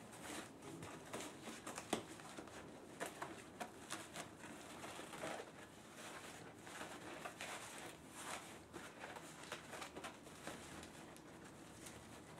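Faint handling noise of corrugated plastic (coroplast) panels being fitted and pressed into a frame: scattered light clicks, taps and rustles, with one sharper knock about two seconds in.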